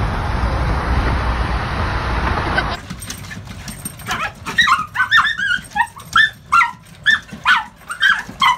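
Steady road rumble inside a moving car, cut off abruptly after a few seconds; then a dog yipping over and over, short high-pitched yips about two a second.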